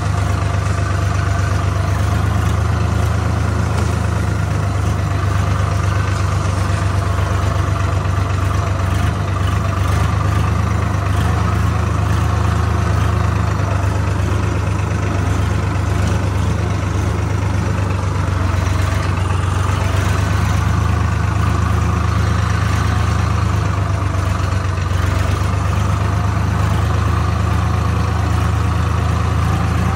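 Swaraj tractor's diesel engine running steadily as the tractor drives along, pulling a thresher behind it.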